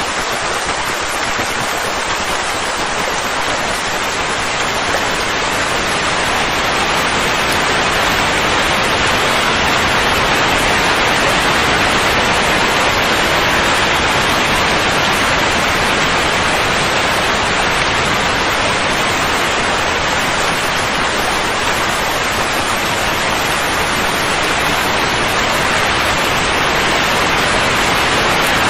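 Steady, even rushing hiss of a soothing noise track for calming a colicky baby, growing slightly louder over the first several seconds and then holding steady.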